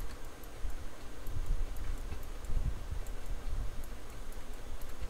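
Faint, irregular clicks of a computer mouse and keyboard over a steady low rumble of microphone noise.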